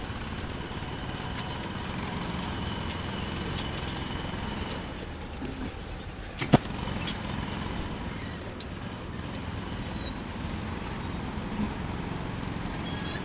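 Insulated copper wire being stripped with a homemade wire stripper: steady noise, with one sharp click about six and a half seconds in.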